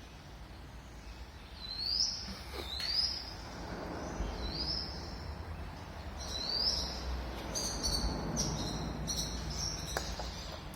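Warbler calling: short high notes, each sweeping up and then falling, repeated every second or two, then a quicker run of higher notes in the second half, over a steady low rumble.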